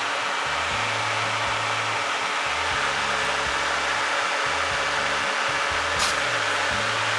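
Car air-conditioning blower fan running on its own, a steady rush of air, with a single sharp click about six seconds in.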